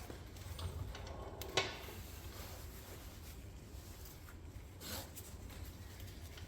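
Small knocks and handling noises from parts being worked by hand, with one sharp knock about one and a half seconds in and a softer one around five seconds, over a steady low hum.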